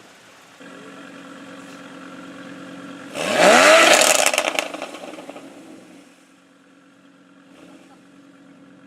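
Exotic sports car engine running at idle, then revved hard once about three seconds in, the pitch climbing steeply, with a burst of sharp exhaust crackles and pops as it comes off the throttle before fading away.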